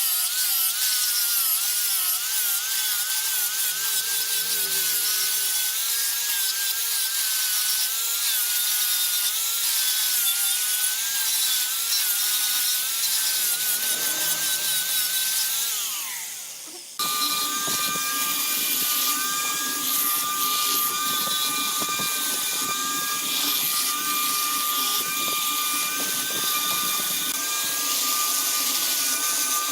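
Wood lathe running with a tool cutting the spinning wood: a steady scraping hiss over a motor whine that wavers with the load. About sixteen seconds in the whine falls in pitch as the lathe slows and the sound fades. It then cuts back in at once, running and cutting again.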